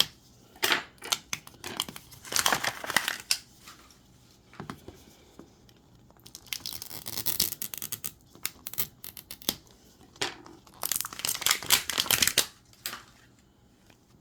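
Thin plastic wrapping being torn and crinkled in several short bursts, as a Mini Brands capsule ball and its tiny bagged miniatures are unwrapped.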